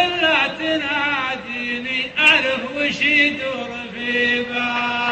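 A man singing a mawwal verse in a loud voice, drawing out long held notes that waver and slide between pitches, with short breaths between phrases.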